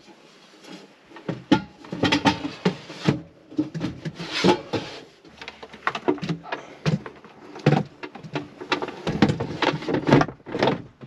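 Irregular clatter and knocks of metal cookware and kitchen gear being handled and moved about on a wooden counter, with some brief rustling.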